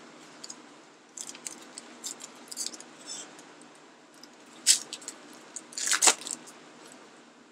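Foil trading-card pack crinkling and being torn open by hand: a run of small crackles, then two louder rips about two-thirds of the way through.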